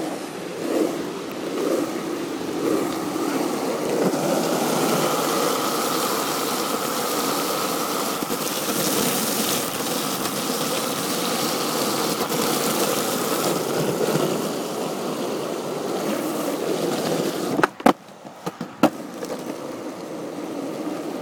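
Skateboard wheels rolling over wet pavement: a steady, gritty rolling noise with a faint hum in it. Near the end the rolling briefly drops out and two sharp clacks sound, about a second apart.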